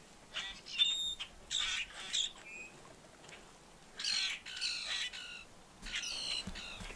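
A bird giving a series of harsh squawking calls, each a fraction of a second long, in clusters with a short lull in the middle.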